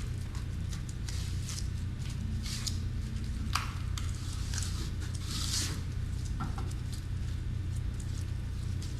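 Irregular wet swishing and scraping strokes of liquid Redgard waterproofing membrane being spread over fiberglass cloth, with one sharp click about three and a half seconds in, over a steady low hum.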